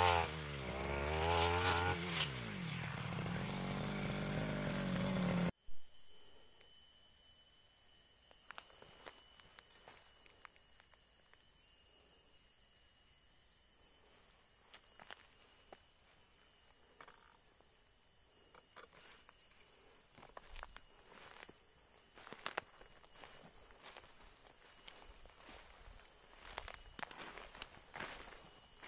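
A brush cutter's engine wavers at speed, falls to a lower idle and is switched off abruptly about five seconds in. After that, insects chirp steadily at several high pitches, with a few faint rustles and clicks.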